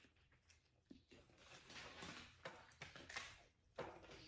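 Near silence with faint, soft mouth and handling noises, mostly in the middle of the stretch, of the kind made while eating a sub sandwich between words.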